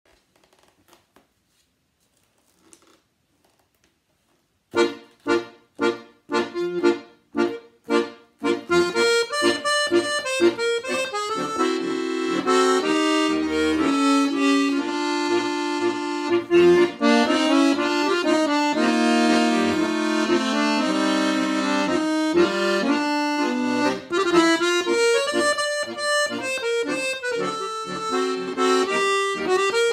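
Ottavianelli four-voice piano accordion (16', 8', 8', 4' reeds) playing. After about five seconds of near silence, it plays a run of short detached chords. From about eight seconds in, the playing turns continuous: a melody over sustained chords and low bass notes.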